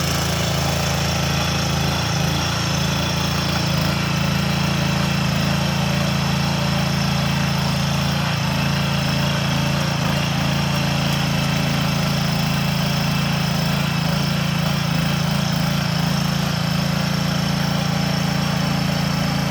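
Small single-cylinder engine of a walk-behind motor hoe (tiller) running steadily at an even speed.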